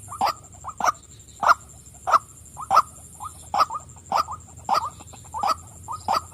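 Female white-breasted waterhen calling: short 'wak' calls repeated about every 0.6 seconds, with softer notes between them.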